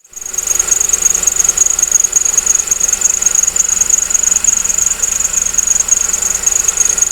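Engine running with a worn, dry belt tensioner bearing giving a loud, steady high-pitched squeal: the sign of a bearing short of grease.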